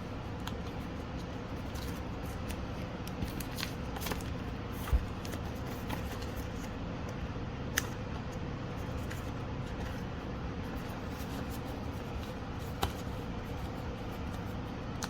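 Pokémon trading cards being handled, with a few scattered light clicks and taps over a steady low room hum.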